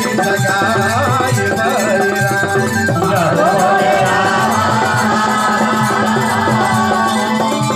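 Devotional Hindu bhajan to Hanuman: a voice singing a gliding melody over a steady hand-drum beat, with a long held note underneath from about three seconds in.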